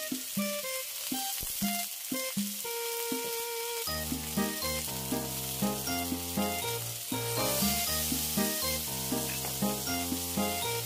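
Tofu, dried chillies and garlic frying in oil in a wok, sizzling steadily, with background music over it.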